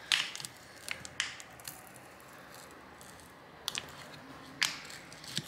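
A thin metal pry tool working under the glued back cover of a phone, giving a handful of scattered sharp clicks and faint scraping as the cover's edge and its softened adhesive are worked loose.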